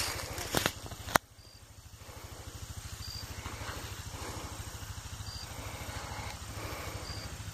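Rustling and handling noise for about the first second, ending in a single sharp click. After that it is quieter, with a steady low pulsing hum and a faint short high chirp about every two seconds.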